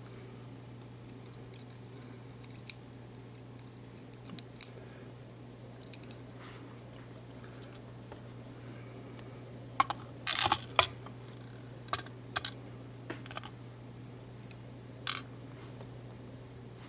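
Scattered small metallic clicks and taps from tweezers and brass pins being worked out of an ASSA V-10 lock cylinder and set down in a pinning tray, with a quick cluster of clicks about ten seconds in. A low steady hum sits underneath.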